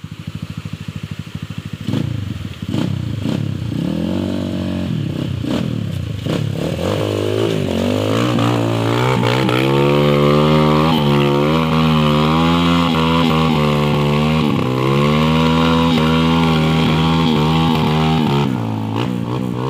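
Trail dirt bike engine revving up and down in short surges, then held at high revs for about ten seconds as it climbs a muddy slope, dropping back near the end.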